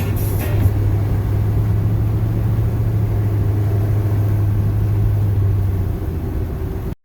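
Chevrolet pickup with an 8.1-litre Vortec big-block V8 under way, a steady low engine drone with road noise heard from inside the cab. The drone eases about six seconds in, and the sound cuts off abruptly at the very end.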